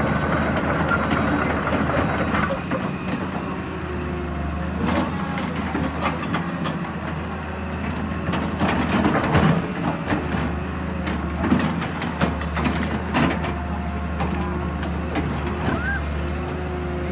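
Excavator at work: its diesel engine runs steadily under scattered sharp knocks and clanks, the loudest a little past the middle.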